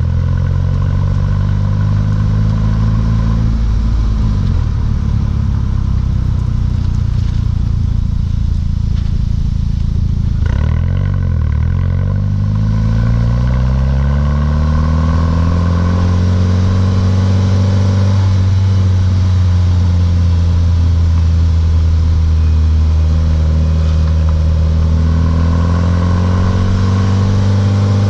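Mk6 Volkswagen GTI's turbocharged 2.0-litre four-cylinder running through a Beluga aftermarket exhaust under way, a steady low exhaust note. Its pitch dips about ten seconds in, climbs back, and holds steady for most of the rest.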